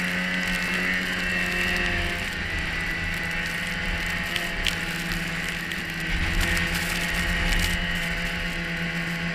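Polaris 550 Indy LXT snowmobile, with its fan-cooled two-stroke twin, running steadily at riding speed, with the whir of its drive and track. The sound gets louder for a moment about six seconds in.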